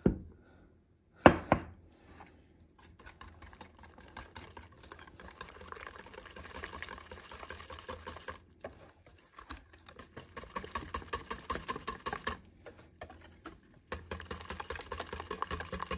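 Two sharp knocks, the second louder, then a wire balloon whisk beating flour into a milk-and-egg pancake batter in a stainless steel saucepan: quick, steady clicking and scraping of the wires against the metal, with a couple of short breaks.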